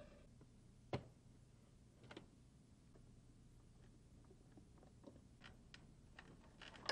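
Near silence with a few faint, sharp clicks and taps of plastic dash trim being handled as the lower dash cover of a Mercedes W210 is worked loose; the clearest about a second in and a louder one near the end, over a faint low steady hum.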